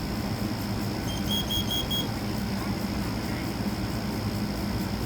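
Kidde i12010SCO combination smoke and carbon monoxide alarm sounding its carbon monoxide alarm: a quick group of four short, high-pitched beeps about a second in, the signal for carbon monoxide detected. A steady low hum runs underneath.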